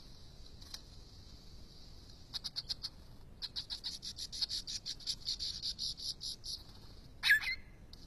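Superb lyrebird singing its display song: rapid trains of clicking notes, about eight to ten a second, with one sharp call sweeping downward near the end. A steady high insect buzz runs underneath.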